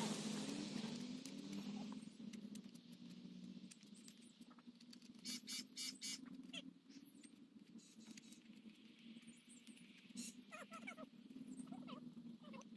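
Knife shaving bark off a green wood stick, a few quick scraping strokes about five seconds in. A faint steady drone of a distant engine runs underneath, fading over the first couple of seconds.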